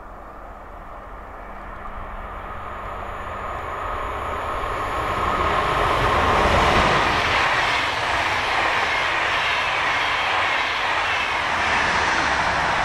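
Electric-hauled double-deck InterCity passenger train approaching and passing at speed, its rushing rumble of wheels on rails growing steadily louder over the first six seconds and then holding loud as the coaches go by.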